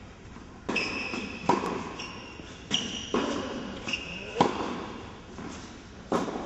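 Tennis ball being hit with rackets and bouncing on an indoor hard court: about seven sharp pops, irregularly spaced, with brief high-pitched squeaks after several of them.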